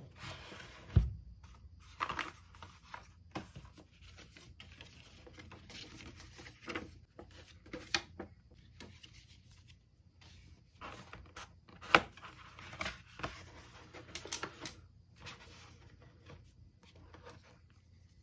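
Hands handling an album's cardboard and paper packaging: card sliding and rustling, with scattered taps and knocks on a wooden desk. The loudest is a dull thump about a second in, and a sharp knock comes near twelve seconds.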